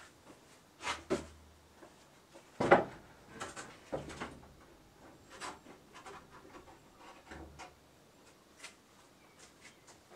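Heavy wooden window shutter panels being lifted down and moved by hand: irregular wooden knocks and scrapes against the frame, the loudest about two and a half seconds in.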